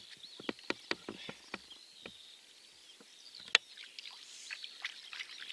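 Footsteps and scuffs on a concrete riverbank as a person walks and crouches at the water's edge, with one sharp slap about three and a half seconds in. Birds chirp in the background.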